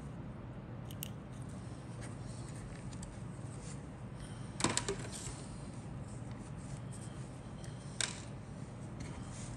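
Small plastic model-kit parts handled and set down on a cutting mat: a few light clicks and taps, the loudest cluster about halfway through and another near the end, over a steady low background hum.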